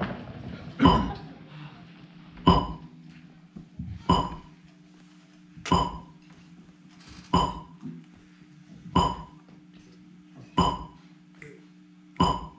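A metronome ticking: eight short, ringing clicks at an even pace of about one every 1.6 seconds, over a steady low hum.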